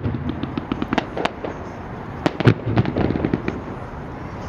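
Fireworks going off: a string of sharp bangs and pops, the loudest about two and a half seconds in, with a quick cluster of pops just after it.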